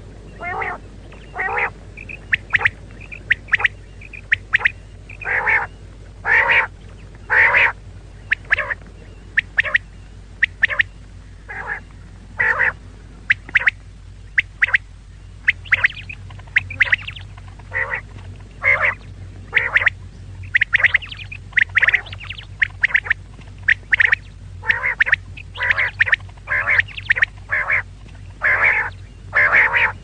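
Female quail calling over and over: short, harsh calls about one or two a second, in irregular runs, some close together or overlapping.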